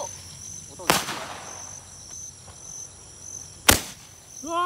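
Handheld firework tube, a Roman candle type, firing two sharp bangs: one about a second in and one near the end. Insects chirp steadily in the background, and a voice exclaims at the very end.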